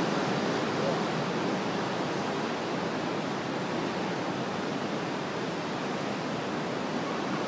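Ocean surf breaking over rocks: a steady, even rush of water.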